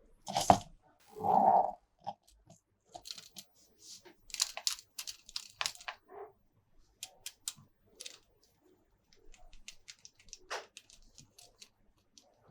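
Toy packaging and plastic toy parts being handled: scattered short clicks, crackles and tearing, with a couple of louder knocks near the start and a short held sound about a second and a half in.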